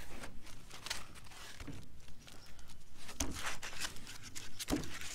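Adhesive grip tape being unrolled and its paper backing peeled away, crackling and tearing in irregular scratchy bursts, with a couple of dull knocks on the wooden trailer ramp about three and four and a half seconds in.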